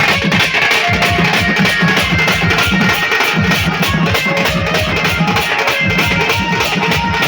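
A melody band playing: a fast, driving drum beat under a held melody line.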